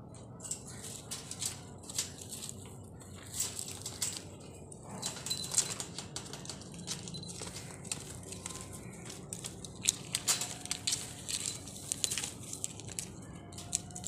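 Irregular clicking, crackling and rustling as a young ring-necked parakeet moves and climbs about its wire cage over dry grass litter.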